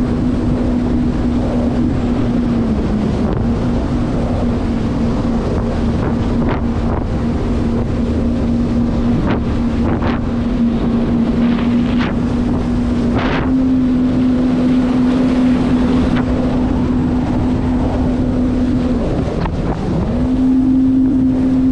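Jet ski engine running at a steady cruising pitch. The pitch steps up slightly midway, and near the end the engine eases off briefly and picks back up. Wind buffets the microphone throughout.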